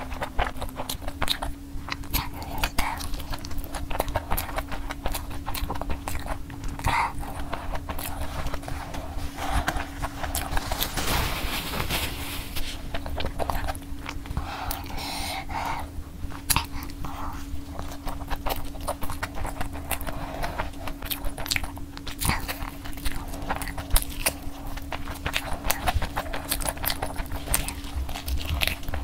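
Close-miked eating of sauce-coated fried chicken: biting, tearing and chewing, heard as many small clicks and crunches. A steady low hum runs underneath.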